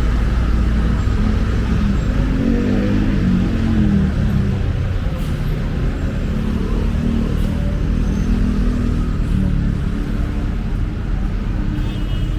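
Road traffic on a busy city street: a steady low rumble of vehicle engines, with one engine's note bending as it passes close, and another rising in pitch near the end as a vehicle accelerates.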